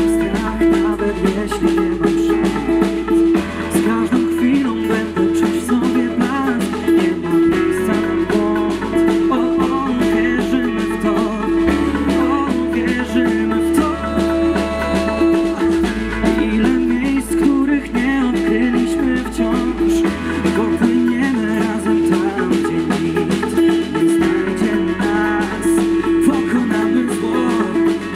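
Live band playing: electric guitar, electric bass and drum kit, the bass moving to a new note about every four seconds.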